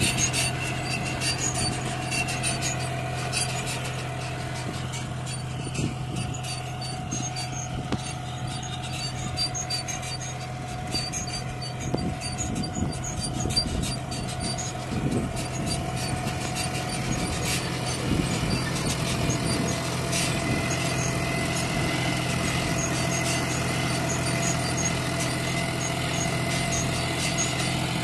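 A 40 hp John Deere tractor's three-cylinder diesel engine runs steadily under load as it pulls a potato planter, with fine rapid clicking from the planter's chain-driven mechanism.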